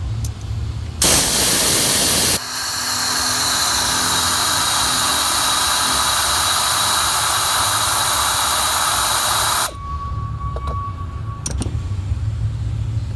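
A loud, steady hiss starts about a second in and stops suddenly after about eight and a half seconds. It is fuller and louder for the first second and a half, then carries a faint high whistle. A low hum runs underneath before and after it, with a few faint clicks near the end.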